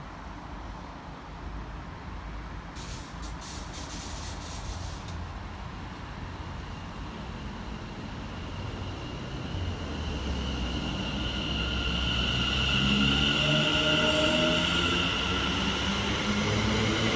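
Train coming closer and growing louder over the second half. As it nears, a high-pitched squeal and several whining tones ride on the rumble.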